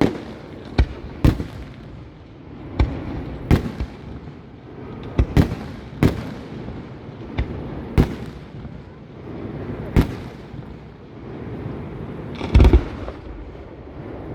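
Professional fireworks display: aerial shells bursting with sharp bangs about every one to two seconds, several going off close together near the end, with crackling between the bursts.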